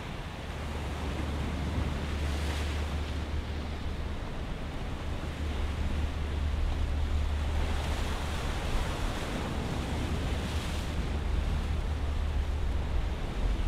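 Sea waves washing over a rocky shore, the hiss of the water swelling a few times, over a steady low rumble of wind on the microphone.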